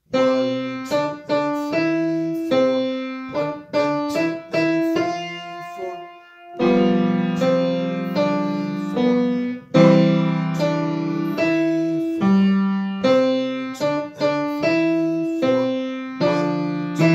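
Piano playing a simple tune: single notes and low chords struck in a steady pulse, each ringing and fading, with a brief pause about six seconds in.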